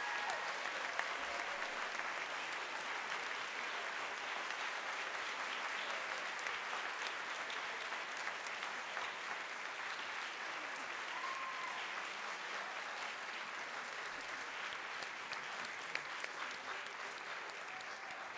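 Audience applauding steadily, the clapping easing off gradually toward the end.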